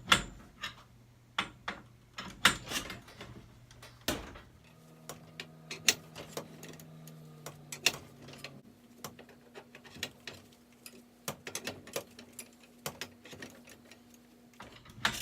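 Steel winding bars clicking and knocking against the winding cone of a garage door torsion spring as the spring is unwound to release its tension. Irregular sharp metal clicks, a few of them loud.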